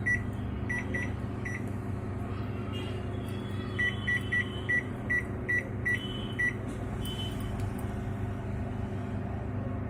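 Microwave oven keypad beeping as buttons are pressed: a few short beeps in the first second and a half, then a quick run of about nine beeps between about four and six and a half seconds in, over a steady low hum.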